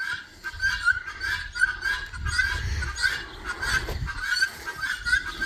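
Farm fowl calling over and over in a steady run of short, honking notes, with wind rumbling on the microphone in gusts.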